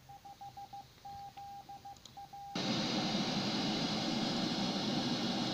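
A DMR amateur radio repeater heard through an SDR receiver. First comes a string of short and long beeps on one tone. About two and a half seconds in, the sound switches abruptly to a loud, steady, harsh hiss: the digital signal as it sounds demodulated as plain audio.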